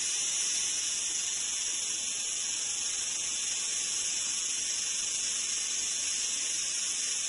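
Cicada chorus: a steady, high-pitched buzzing drone, the sound of summer heat.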